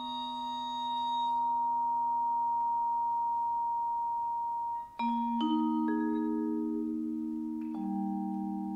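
Vibraphone played with four mallets. A held chord rings for several seconds and is cut off about halfway through. Then single notes are struck one after another, each left ringing under the next so they build into a new chord.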